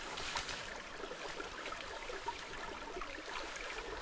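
Small, shallow forest stream at low water, trickling gently and steadily.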